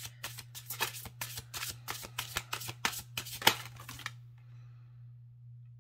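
A deck of tarot cards being shuffled by hand: a quick run of card clicks and flicks, about five a second, that stops about four seconds in.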